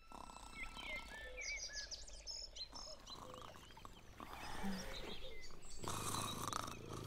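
Woodland birds chirping and twittering over the first few seconds, followed about six seconds in by one long rough snore from the sleeping witch.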